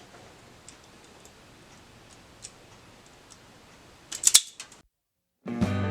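Wire stripper clicking and snipping as insulation is stripped off the ends of thin sensor wires, with faint scattered clicks and then a loud cluster of sharp snaps about four seconds in. Guitar music starts near the end.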